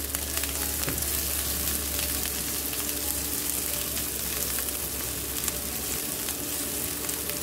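Sliced onions, garlic and other aromatics sizzling in hot oil in a nonstick frying pan, with scattered light clicks of tongs stirring them against the pan.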